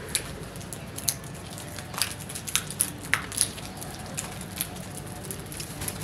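House crows' beaks pecking grain off a concrete floor: irregular sharp taps and clicks, a few of them loud, over a low steady hum.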